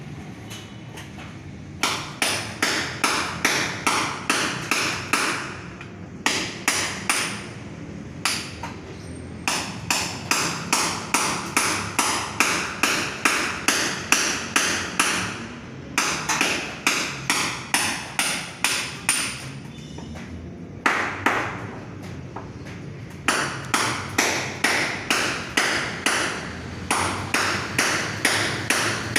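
Hand hammer striking repeatedly, about three blows a second in runs of several seconds with short pauses; each blow has a sharp metallic ring.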